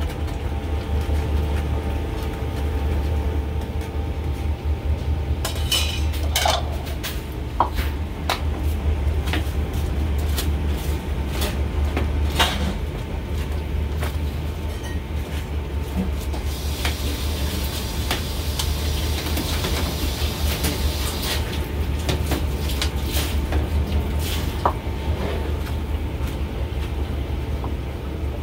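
Metal utensils and a wire-mesh strainer clinking and knocking against steel pots and bowls, in scattered irregular strikes, over a steady low hum. A few seconds of hiss come a little past the middle.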